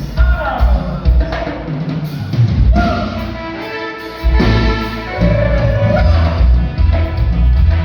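Band playing a chilena, a Mexican regional dance music, with drum kit and bass keeping a steady beat under a melody that slides in pitch. The music drops back briefly about midway, then comes back in full.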